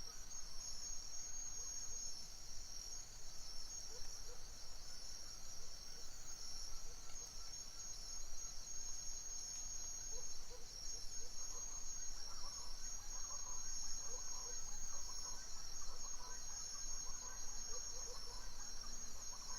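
A night chorus of crickets trilling steadily in dense, fast pulses, high-pitched and unbroken. Fainter, lower-pitched chirping joins in about halfway through.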